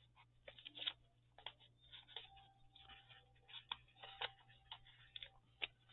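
Faint, irregular light clicks and taps from small craft materials being handled: paper pages and hair bobby pins.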